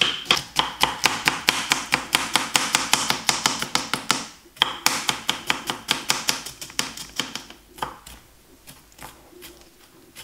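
Quick, even knife chops on a plastic cutting board: a ceramic kitchen knife mincing garlic cloves, about five strokes a second. The chopping breaks off briefly about four seconds in, then resumes and thins out to a few lighter taps near the end.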